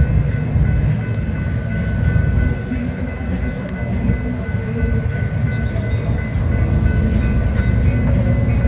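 A train passing on the line, its wheels and cars making a heavy, steady low rumble.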